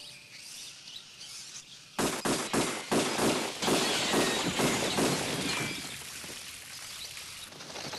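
Film sound effects of a violent action scene: about two seconds in, a quick run of loud bangs and crashes begins, with shattering noise that dies away over the next few seconds.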